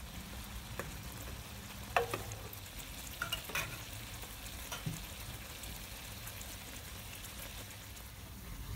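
Crêpes sizzling in a pan of bubbling orange-zest caramel sauce, with a few sharp metal clinks of utensils against the pan, the loudest about two seconds in.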